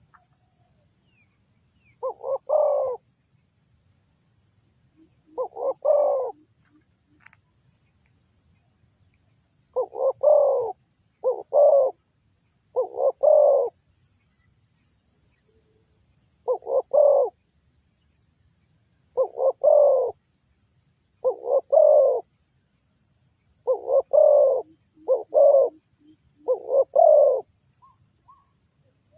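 Spotted dove cooing: about eleven short phrases of two or three low notes each, repeated every few seconds with irregular gaps, over a faint steady high insect trill.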